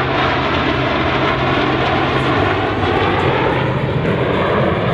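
Blue Angels F/A-18 Hornet jet engines running loud and steady overhead, a dense roar with a faint, slowly shifting pitch.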